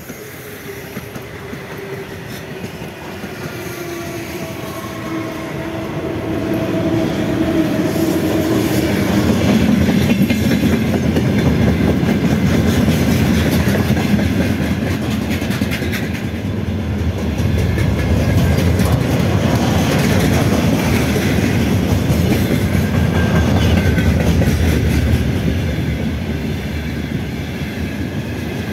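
Freight train hauled by a VL10u electric locomotive approaching and passing close by. The locomotive's whine falls in pitch as it goes by, while the sound builds over the first ten seconds. Then comes a steady rumble and clickety-clack of the freight wagons rolling past.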